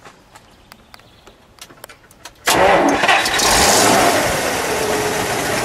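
1950 Buick Roadmaster's 320 cubic-inch Fireball straight-eight starting about two and a half seconds in. It catches at once, runs up briefly, then settles to a steady run, its pitch falling.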